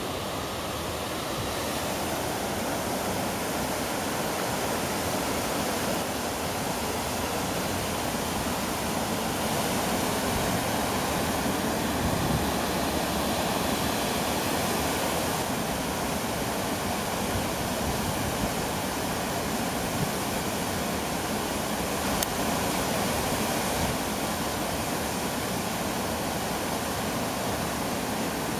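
Flowing water rushing steadily, from a stream running open and unfrozen.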